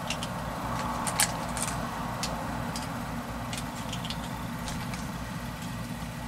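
.45 ACP cartridges being pressed one by one into the Llama Minimax's magazine: a series of irregular short metallic clicks, over a steady low rumble.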